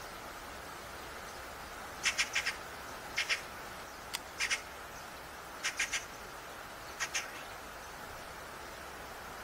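A bird calling in short clusters of two to four quick, chattering notes, repeated every second or so, over a steady outdoor hiss; one sharp click about four seconds in.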